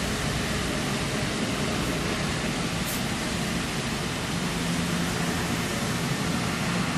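Rubber-tyred Wenhu line automated metro train rolling slowly past: a steady hiss of tyres and running gear over a low hum. A brief high hiss sounds about three seconds in.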